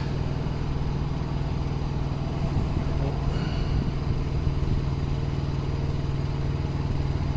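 Steady low hum of an idling engine running evenly, with no change in speed.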